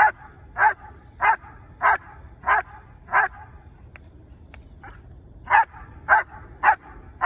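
German Shepherd barking steadily at a helper in a blind, in a bark-and-hold protection drill. The barks come in an even rhythm of about one and a half a second, with a pause of about two seconds in the middle before the barking picks up again at the same pace.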